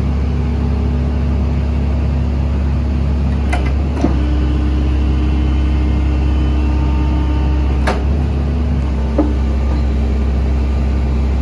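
Wheeled excavator's diesel engine running steadily with a hydraulic hum whose pitch steps up and down a few times. Several sharp clicks cut through it: two close together about a third of the way in, then two more later.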